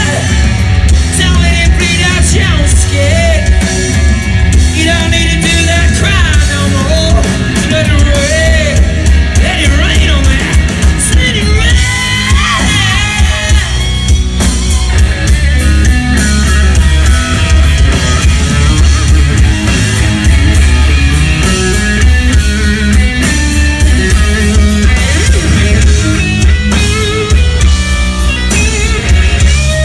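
Live rock band playing a power ballad through a club PA: a lead melody that bends and wavers over bass and drums, with a heavy low end, recorded from within the crowd.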